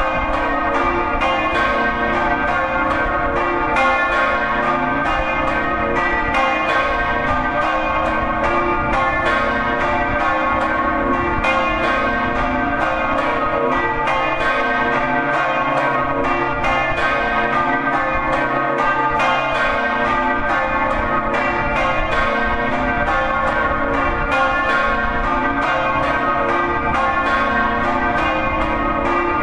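Three bronze church bells, cast by Daciano Colbachini in 1920 and tuned to B-flat, C and D, swinging together in a Friulian-style peal (doppio). Their clappers strike in quick, overlapping strokes, a few a second, over a continuous wash of ringing.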